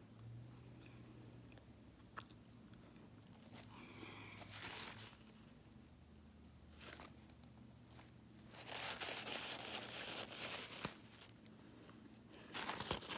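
Close-up eating sounds: bites and chewing of fast food, with crunching in a few bursts, the longest a couple of seconds after the middle.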